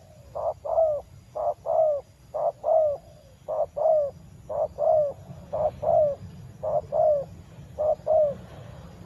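Spotted dove (tekukur) cooing: a two-note coo, a short note then a longer falling one, repeated about once a second, eight times.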